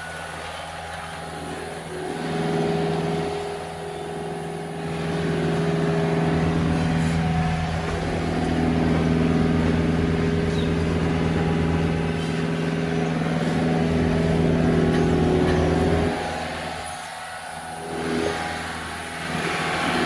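Diesel engine of a John Deere 323E compact track loader running under load as it scrapes the barn alley. It revs up a few seconds in, holds high for about ten seconds, drops, then picks up again near the end.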